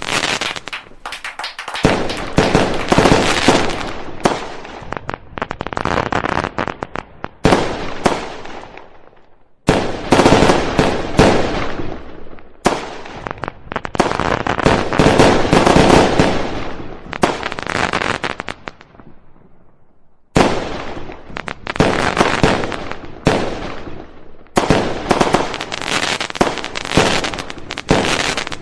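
Fireworks going off in rapid volleys of bangs and crackles: four dense barrages, each fading off before the next one starts.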